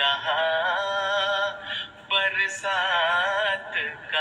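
Solo voice singing a hamdiya kalam (an Urdu devotional poem praising God) in long, wavering held notes, with a short break about two seconds in.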